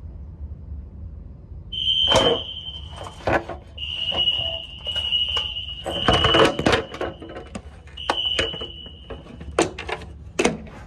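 A fire alarm sounding a high-pitched steady tone in on-and-off stretches, starting about two seconds in. Sharp knocks and clicks come throughout, the loudest of them louder than the tone.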